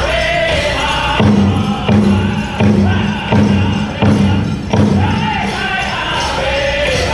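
Powwow drum group singing a men's chicken dance song: high group singing over a big drum. About a second in, the singing drops back for a run of six heavy, accented drum strikes, evenly spaced a little under a second apart, before the singing picks up again. A jingle like a tambourine runs through it, fitting the dancers' bells.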